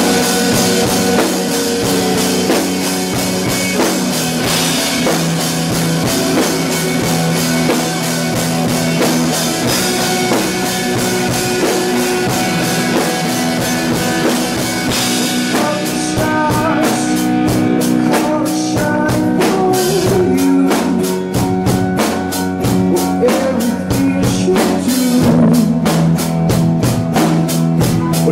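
Rock band playing loudly, with a drum kit and guitars.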